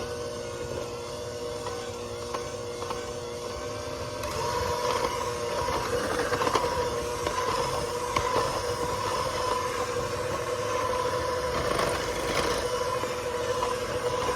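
Electric hand mixer running, its motor hum getting louder about four seconds in as the beaters work a stick of butter into a dry flour-and-sugar crumb mix.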